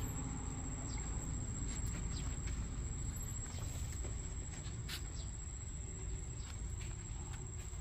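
Quiet outdoor background: a steady low rumble under a constant thin high-pitched whine, with a few faint clicks, one about five seconds in.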